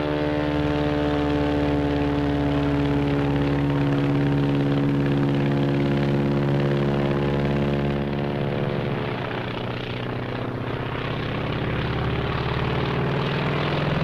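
Propeller aircraft engine droning steadily, its pitch shifting and rising in the second half as the plane passes.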